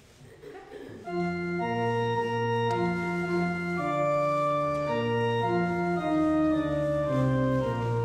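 Church organ starts about a second in and plays slow, sustained chords that change every half second to a second.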